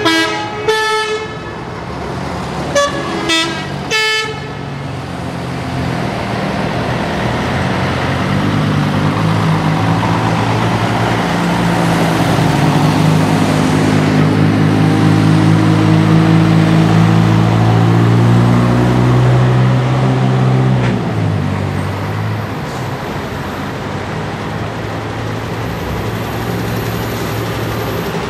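A bus horn tooting several short times in the first few seconds. Then a heavy bus engine running, its sound swelling over the following seconds and easing off about three-quarters of the way through.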